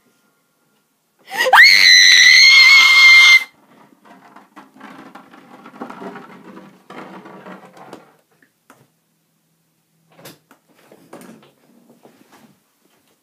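A high-pitched scream, about two seconds long, that shoots up in pitch and then holds. It is followed by quieter rustling and scraping and a few faint scratches and clicks.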